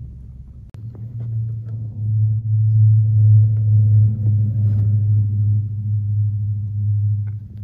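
Motor vehicle engine and exhaust running with a deep, steady rumble that comes in abruptly about a second in, is loudest in the middle and cuts off near the end.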